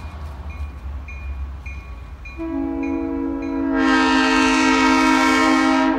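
Train horn sounding a long, steady chord for the grade crossing. It starts about two and a half seconds in and grows louder near the end as the train approaches. Behind it a crossing bell dings steadily, about twice a second.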